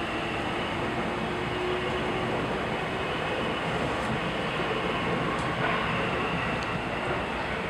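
Steady mechanical running noise with no distinct clicks or knocks, plausibly the multi-row taiyaki baking machine and its griddle plates at work.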